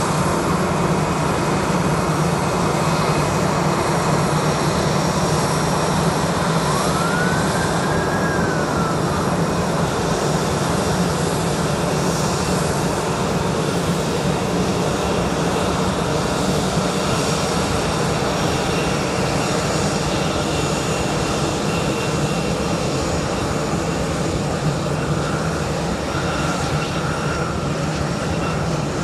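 Jet airliner engines running steadily at taxi power, a constant rumble with a high whine over it. About seven seconds in, a faint whistle rises and falls once.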